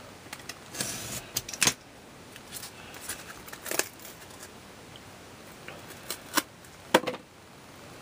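Utility knife blade scraping and cutting through cardboard under wooden craft sticks on a plastic cutting board, followed by a few sharp clicks and knocks as the knife is set down and the sticks are handled.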